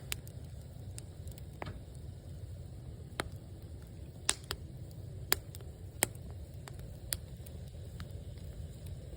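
Firewood burning in an agungi, a traditional Korean wood-fired firebox: irregular sharp crackles and pops, roughly one a second, over a steady low rumble.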